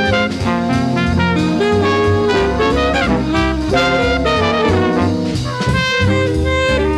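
Trumpet playing a jazz melody over a band accompaniment with bass and drum kit.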